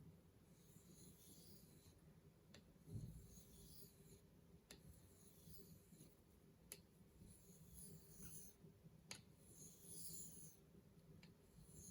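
Faint, soft swishes of a knife blade drawn along a basswood strop loaded with 9-micron compound, a stroke every second or two, with a few light clicks between strokes.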